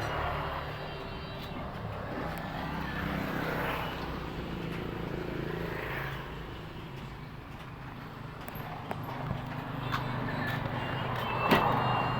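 Car engine idling steadily under the hood, with a few sharp clicks and one louder knock near the end.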